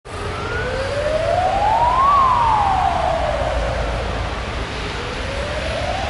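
Emergency vehicle siren wailing: one slow tone that rises in pitch for about two seconds, falls back over the next two or so, then starts rising again near the end. A low rumble runs underneath.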